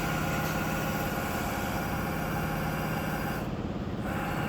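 CNC milling machine table being power-jogged along its axis by the feed drive motor on box ways, giving a steady mechanical whine and hum.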